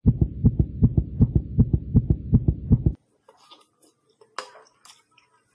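A fast, even run of low thuds, about six a second, stopping abruptly after about three seconds; after that, faint scattered clicks and clinks.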